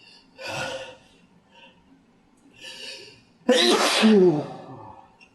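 A man sneezing: two short noisy bursts, then about three and a half seconds in a loud, voiced sneeze whose pitch falls as it trails off.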